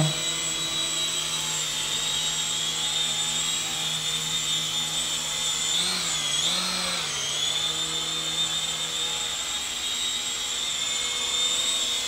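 Syma S200 toy remote-control helicopter in flight: its small electric rotor motor whines steadily, with the pitch briefly wavering up and down twice about six to seven seconds in.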